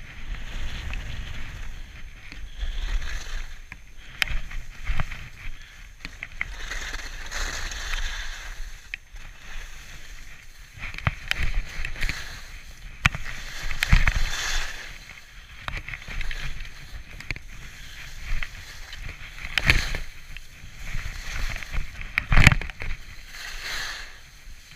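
Skis swishing through deep, soft snow in a run of turns, each turn a hiss that swells and fades, over a low rumble of wind on the microphone. A few sharp knocks come through, the loudest about 22 seconds in.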